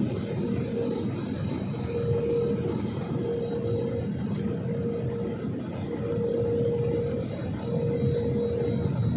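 Airliner cabin noise: a steady low rumble of the jet engines and airflow heard from a seat over the wing during the approach to landing, with a hum that swells and fades about once a second.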